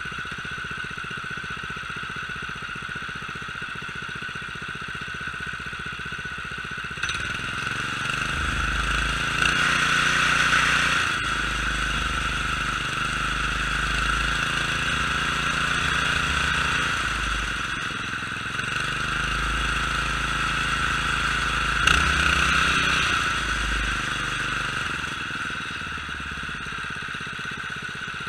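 Predator 212 single-cylinder OHV engine running at idle, then revved up twice, each time climbing in pitch for a few seconds before settling back to idle.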